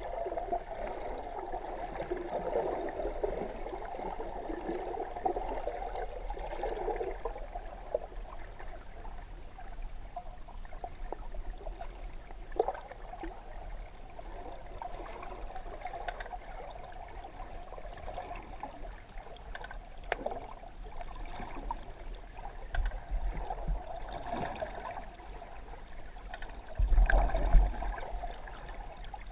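Water sloshing and gurgling heard through a submerged camera, a steady wash of noise with scattered small clicks. Near the end it swells into a louder, lower rush for about a second.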